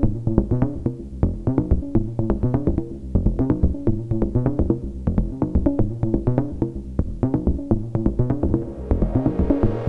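Eurorack modular synthesizer playing a fast sequenced pattern of short, pitched, bongo-like percussive hits, several a second, voiced through a Klangbau Köln Twin Peak filter and a Make Noise Optomix low-pass gate. Near the end a brighter hiss comes in over the pattern.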